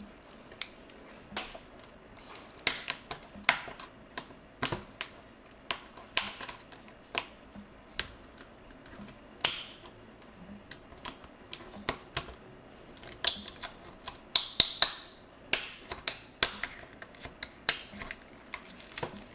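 Small parts of a phone's outer shell being pried and unclipped to get at the loudspeaker assembly: irregular sharp clicks and snaps with short scrapes.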